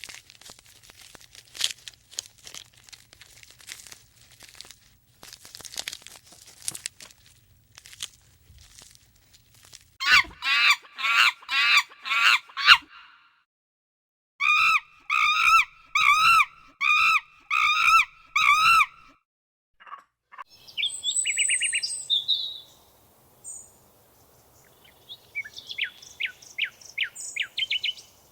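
A sequence of animal sounds: first scattered clicks and taps, then loud pitched calls repeated about twice a second in two runs, then bird trills and chirps near the end.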